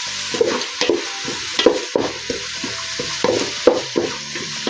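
Chopped garlic and whole spices frying in hot coconut oil with a steady sizzle, while a spoon stirs and scrapes the pan in repeated strokes, about two or three a second.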